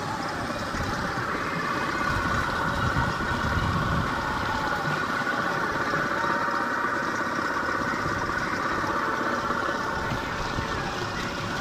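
Electric motor running steadily, driving a water pump through a V-belt, a continuous mechanical hum and whir.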